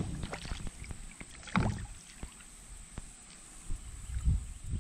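Water splashing beside a kayak as a small smallmouth bass is reeled alongside and grabbed by hand, with a louder splash about one and a half seconds in and a few knocks on the hull.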